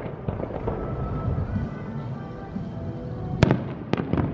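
Aerial firework shells bursting, heard from a distance: a few sharp bangs about three seconds in, the first the loudest, each followed by a short rumble.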